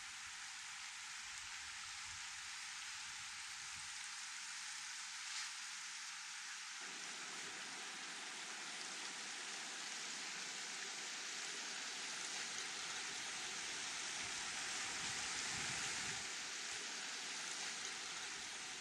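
Steady outdoor ambient hiss of trailside wind and water with no distinct events, growing a little fuller about seven seconds in. One faint tick comes about five seconds in.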